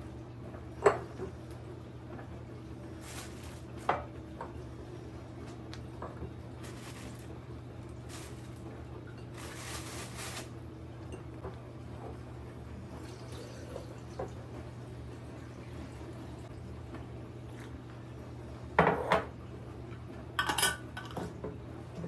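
A large glass jar being handled on a stone countertop: sharp glass knocks about a second in and again near four seconds, a short rush of water poured into it around ten seconds, and a cluster of clinks and clatter near the end as the lid is put on and screwed down. A low steady hum runs underneath.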